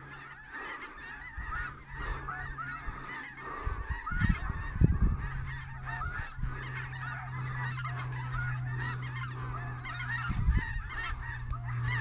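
A flock of snow geese calling: a dense chorus of many overlapping short, high calls that never lets up. Low rumbles of wind on the microphone come about four seconds in and again about ten seconds in.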